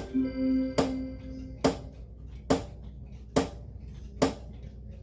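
Seiko animated wall clock's mechanism clicking evenly, a little faster than once a second, five clicks in all: a stripped gear slipping as the dial fails to move back into place. A held musical note sounds over the first clicks and fades about a second and a half in.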